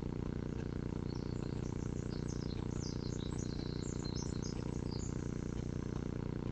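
A small bird singing a quick twittering string of high chirps, from about a second in until about five seconds in, over a steady low hum.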